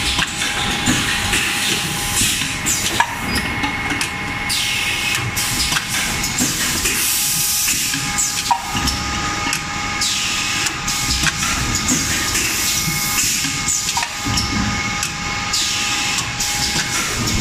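Automatic three-cavity PET stretch blow moulding machine running, with loud bursts of compressed-air hiss about every two and a half seconds. Underneath are mechanical clatter and knocks from the preform conveyor and grippers, and a steady thin whine.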